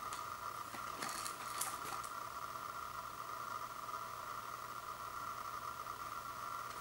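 Faint rustles and taps of hands turning a cardboard Pringles can, mostly in the first two seconds, over a steady background hiss with a constant whine in it.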